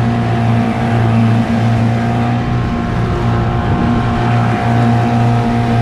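Yamaha outboard motor running steadily at high revs, about 6000 rpm and holding there. The wash of the dinghy's wake is heard with it.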